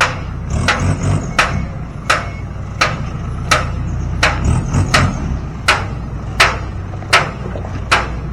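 Hammer strikes at a steady pace, about three every two seconds, over the low, steady running of an engine.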